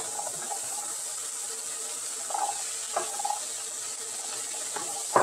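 Masala sizzling steadily in a nonstick wok as boiled chickpeas are tipped in from a glass bowl and stirred with a wooden spoon, with a few light knocks of spoon and bowl against the pan.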